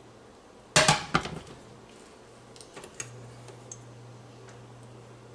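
Cookware clatter: a quick cluster of sharp metal knocks about a second in, followed by a few lighter clicks, with a low steady hum that gets louder about three seconds in.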